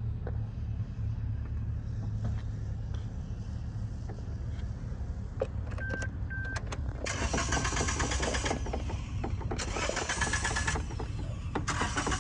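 Suzuki Alto's starter motor cranking the engine in three bursts, the engine not catching: a hard start. Two short beeps sound about halfway through, just before the first burst.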